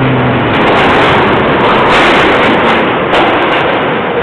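New York City subway train pulling into the station, a loud, dense rumble of wheels on track that swells toward the middle and eases off a little near the end.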